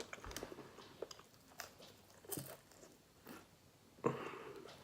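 Close-miked chewing of fried chicken: soft, scattered crunches and wet mouth clicks.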